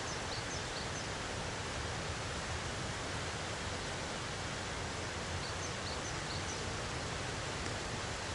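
Steady rush of flowing water from a mountain river, with a few faint high chirps near the start and again about five to six seconds in.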